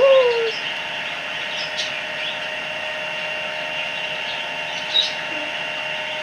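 A steady hum of two fixed tones, one low and one high, over a noisy background. A short gliding voice sound comes right at the start, and a faint click about five seconds in.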